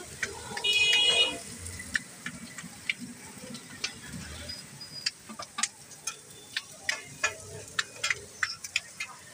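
Shami kababs frying on a flat iron griddle with a low sizzle, while a metal spatula and knife click and scrape against the griddle many times. About half a second in, a loud high-pitched tone sounds for under a second.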